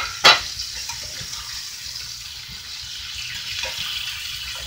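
Meat frying in a cast-iron skillet, a steady sizzle, with a metal pot lid clanking down onto the stovetop about a third of a second in. Light scrapes of a spatula turning the meat come near the end.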